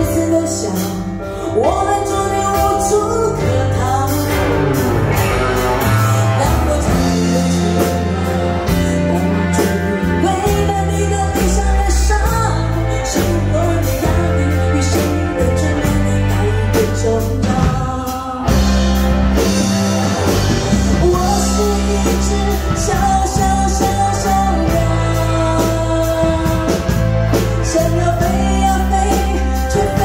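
Live band of drums, electric guitar and keyboard accompanying a woman singing a Mandarin pop-rock song into a microphone, with a brief dip about two-thirds of the way through.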